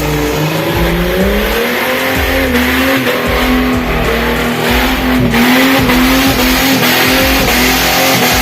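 Off-road 4x4's engine revving up about a second in and then held at high revs, the pitch wavering slightly.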